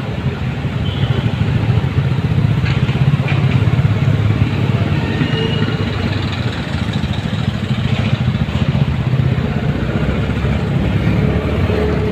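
Motorcycle engine running steadily at low speed in traffic, heard from the rider's seat with road noise.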